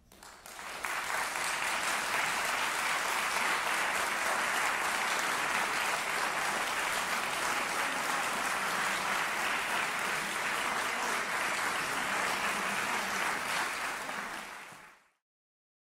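Audience applauding, rising within the first second and held steady, then fading away near the end.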